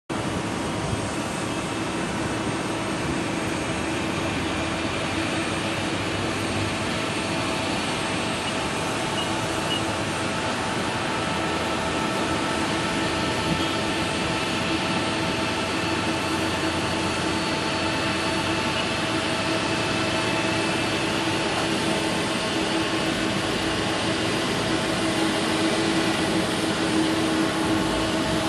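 Boeing 777-200 jet engines running steadily, a dense roar with a steady whine through it, slowly growing louder near the end.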